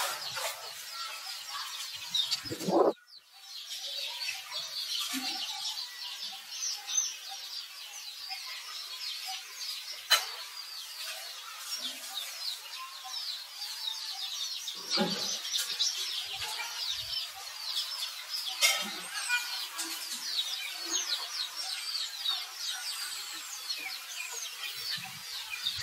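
Many small birds chirping and twittering in a steady chorus. A loud thump sounds about three seconds in, followed by a brief drop-out, and there are sharp clicks around ten and nineteen seconds.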